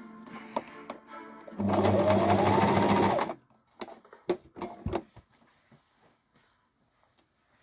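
Sewing machine running in one burst of about a second and a half, stitching, followed by a few light clicks and knocks.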